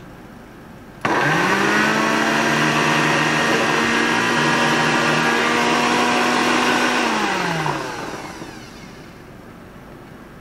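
Countertop blender switched on about a second in, its motor spinning up to a steady speed as it chops a jar of bell peppers. About seven seconds in it is switched off and winds down with a falling whine.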